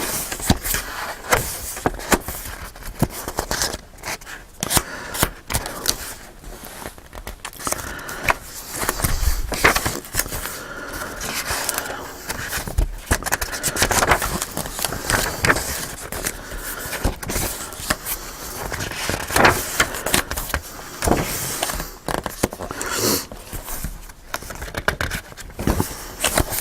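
Paper pages and heavy cardstock of a handmade journal being turned and handled: rustling and scraping with frequent sharp flaps and taps.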